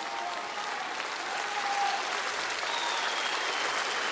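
Large concert-hall audience applauding steadily, the many hand-claps merging into a dense wash of sound.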